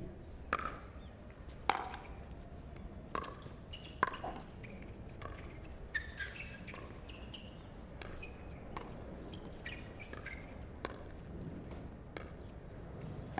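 Pickleball paddles striking a hard plastic ball in a rally: sharp pops at uneven spacing, roughly one every second or two.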